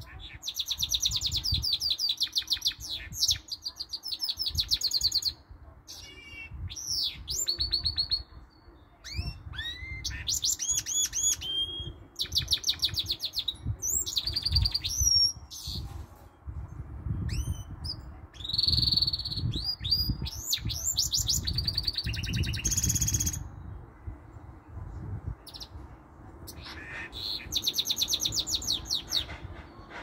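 Goldfinch mule (goldfinch × canary hybrid) singing in phrases of fast, high trills and twitters mixed with canary-like notes, with short pauses between them, over a low rumble.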